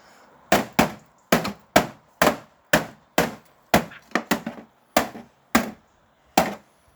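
Repeated blows striking a TV set, about fourteen sharp strikes at roughly two a second, starting about half a second in.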